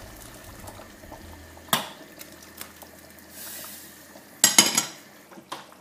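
Hot water poured from a glass bowl into a stainless steel pot of simmering tomato and lamb stew, with the stew bubbling. A click, then a sharp metal clatter of kitchenware against the pot about four and a half seconds in, the loudest sound.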